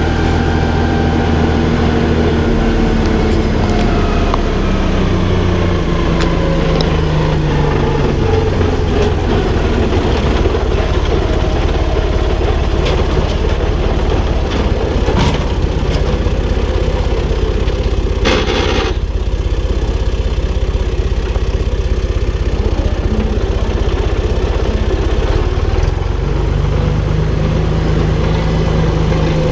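Valtra BF-75 tractor's diesel engine running steadily, its note dropping slowly over the first several seconds, then rougher, with a brief burst of noise a little over halfway through.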